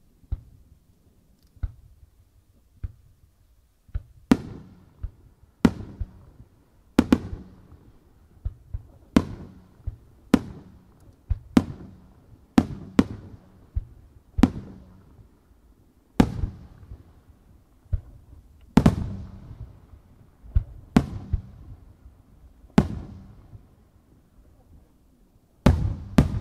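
Aerial firework shells launching and bursting overhead in quick succession: about twenty sharp bangs, the first few softer and the rest louder from about four seconds in, each followed by a rolling echo.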